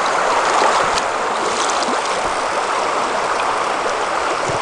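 A shallow river running over a gravel riffle: a steady, even rush of water.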